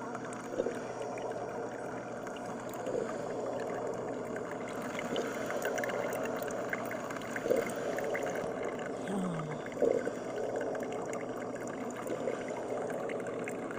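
Black+Decker DCM18S Brew 'n Go single-serve coffee maker brewing: a steady sound of hot water running through the grounds into the travel mug, with short pops every couple of seconds.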